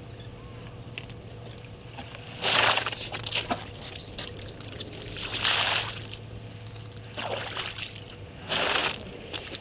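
African elephant drinking with its trunk at a waterhole: four short bursts of sloshing, splashing water, a second or two apart.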